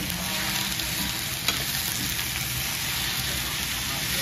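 Shredded leafy greens sizzling in a hot steel wok as a metal spatula stirs and turns them, with one sharp clink of the spatula against the wok about a second and a half in.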